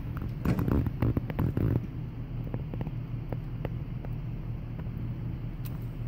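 Blizzard wind buffeting the microphone in a steady low rumble, with the strongest gusts in the first two seconds and scattered light ticks.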